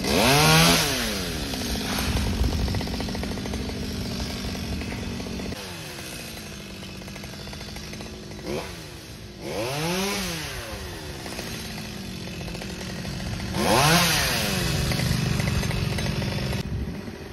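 Small petrol engines running: a steady engine hum with three louder swells, about a second in, near the middle and near the end, each rising and falling in pitch.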